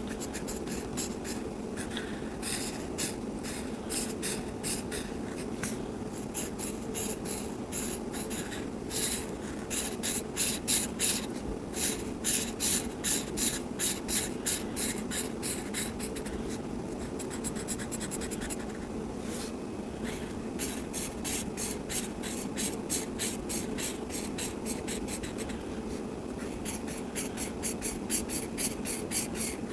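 Coloring on paper: quick, rhythmic back-and-forth scratching strokes in repeated runs, loudest in the middle, over a steady low hum.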